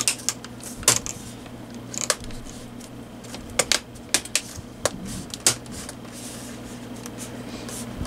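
Plastic hinge cover of a Dell Latitude D630 laptop being pressed down and snapped into its clips, giving a string of sharp clicks spread over several seconds, over a steady low hum.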